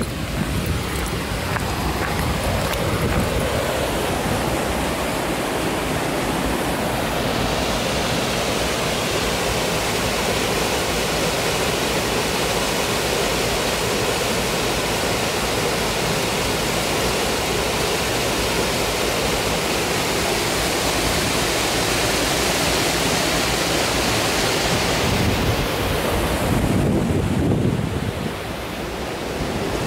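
Creek rushing over a small rocky cascade as a steady wash of water. The rush grows brighter about a quarter of the way in and falls back shortly before the end.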